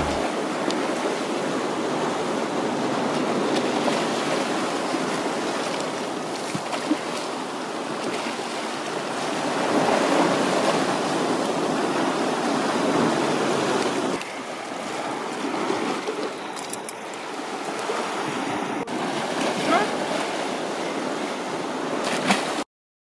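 Sea surf washing over rocks, a steady rush that swells and eases, ending in a sudden cut near the end.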